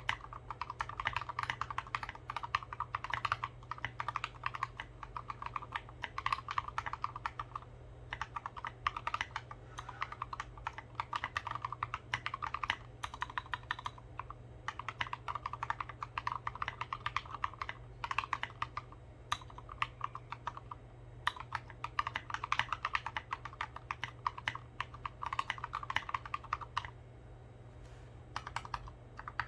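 Custom Discipline mechanical keyboard typed on in fast runs of key clicks with short pauses. It has Gateron Merlot tactile switches and Everglide stabilizers lubed with Krytox 205g0, foam in the case, and SA-profile keycaps.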